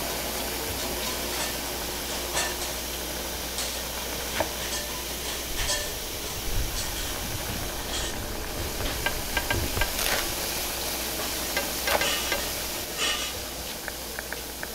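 Roast meat sizzling and steaming on a large hot grill pan, a steady hiss with a few scattered sharp clicks.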